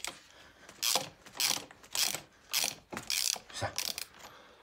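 Hand tool working on metal parts of a tractor's front drive axle during teardown, in short rasping mechanical strokes about twice a second.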